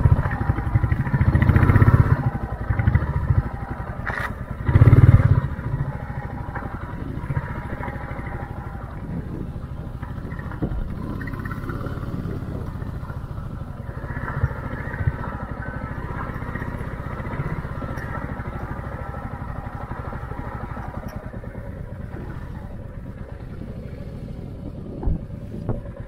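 Single-cylinder engine of a Royal Enfield Classic 350 motorcycle running at low speed while the bike is ridden over slippery grass. It gets louder twice in the first five seconds, then runs steadily.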